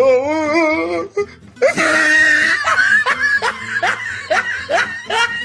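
Funny meme sound effects played back to back: a warbling, wavering voice for about a second, a loud noisy burst near two seconds in, then a run of short rising laughing sounds repeating about twice a second.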